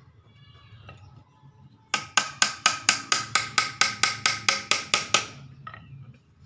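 Small hammer tapping rapidly on the wooden frame of a bird cage being assembled. About fifteen sharp taps at roughly four a second, each with a slight ring, stopping a little after five seconds in.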